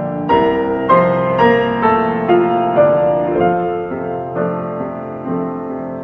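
Background piano music: single notes struck about every half second in a slow, tender melody.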